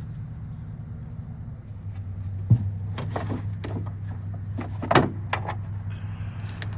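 Scattered metal clicks and knocks as battery cable terminals are fitted onto a battery post. The loudest come about two and a half and five seconds in, over a steady low hum.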